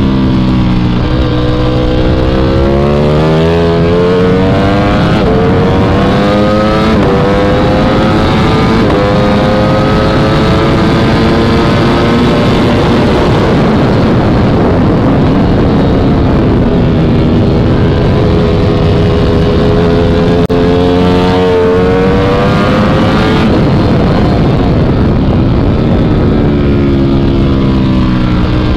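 Ducati Panigale V4S's 1103 cc V4 engine through an Akrapovic titanium racing exhaust, heard onboard at full throttle. The pitch climbs in steps as the bike shifts up through the gears, then there is loud wind rush on the straight. Near the end the revs fall as it brakes and shifts down for a corner.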